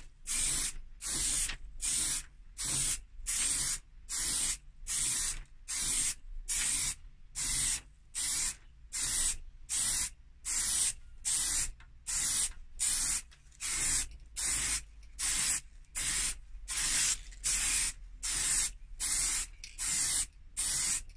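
Aerosol spray paint can hissing in short, even bursts, about one and a half a second, the nozzle released between each stroke as a metallic top coat is laid on.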